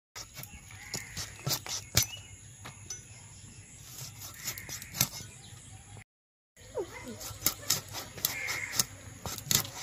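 Tiny scales of a large lau foli fish being scraped off against the upright blade of a boti, the Bengali floor-mounted cutting blade: a run of irregular scraping ticks and sharp clicks, breaking off briefly about six seconds in.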